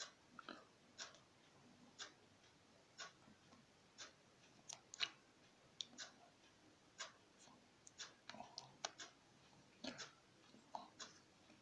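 Faint ticking about once a second, with a few irregular small clicks in between.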